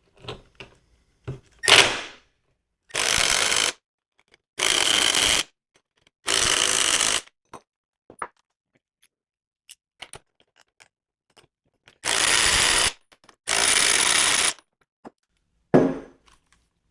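Milwaukee M12 brushed impact driver hammering as it tightens bolts, in five short bursts of about a second each with pauses between. A sharp clank comes about two seconds in and another near the end.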